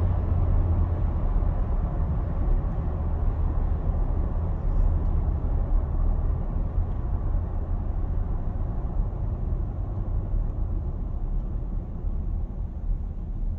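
A 2021 Nissan Armada's 5.6-litre V8 running: a steady low rumble that eases slightly near the end. The owner considers it abnormally loud engine noise.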